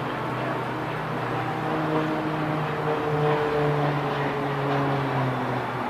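KT-1B Woong Bee turboprop trainer in flight, its Pratt & Whitney PT6A engine and propeller droning steadily. It grows louder around the middle, and the pitch falls slightly as the aircraft passes.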